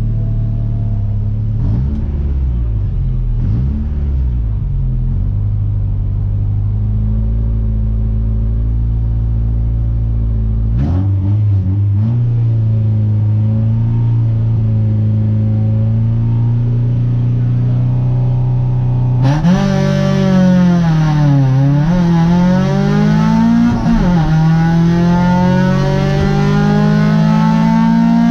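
Renault Clio 1.8 race car's engine heard from inside the cabin: idling with a few short throttle blips, then revs raised and held, then at full throttle as the car launches, pitch climbing and dropping back twice at the gear changes.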